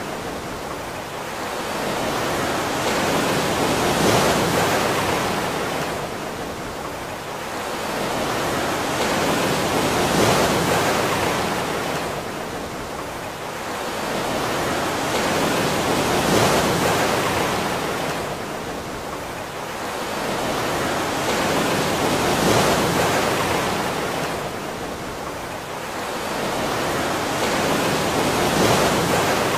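Surf washing in and drawing back: a rushing water noise that swells and ebbs evenly about every six seconds.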